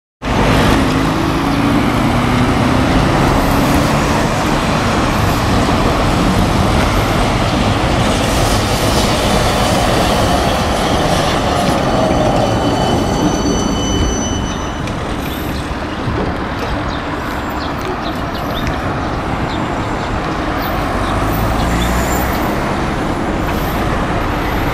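Electric tram running past close by on its street tracks: a steady rumble of wheels on rail, with a high steady whine for several seconds in the middle.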